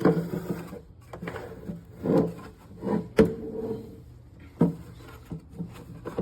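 Hard plastic water tank being handled and turned over: a few sharp clicks and knocks with rubbing and scraping between them. The tank has a crack in its side that leaks.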